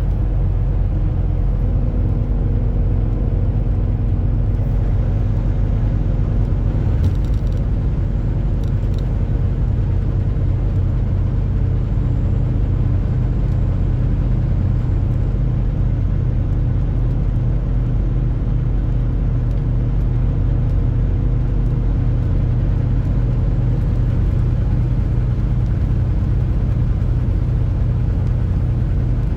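Truck driving on the road: a steady, loud low drone of engine and road rumble, with a faint engine hum over it.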